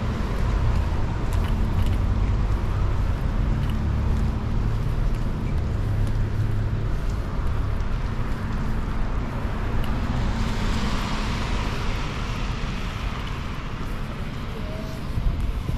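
City street traffic on a wet road: vehicle engines rumble low and steady, and a car passes about ten seconds in with a swelling, then fading hiss of tyres on wet pavement.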